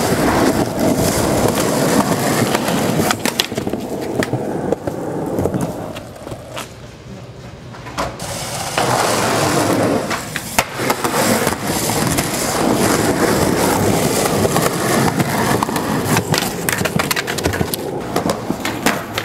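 Skateboard wheels rolling over rough concrete, with sharp knocks of the board hitting the ground and a ledge. The rolling dies down for a couple of seconds before a loud clack about ten seconds in.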